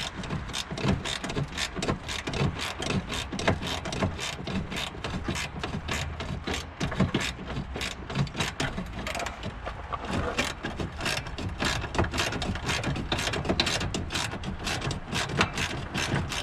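Ratchet wrench with a 12mm socket clicking steadily, many quick clicks, as it backs out a horn mounting bolt.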